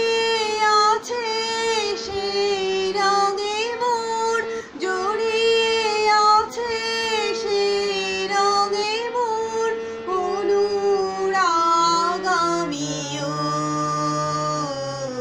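A woman singing a Bengali song solo, holding long notes with slides and ornaments between them, over a steady low drone that steps down to lower notes near the end.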